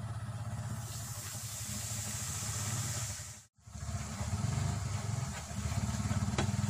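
Gram flour sizzling as it is poured into hot oil in a nonstick pan and stirred with a wooden spatula, over a steady low rumble. The sound cuts out briefly about halfway through.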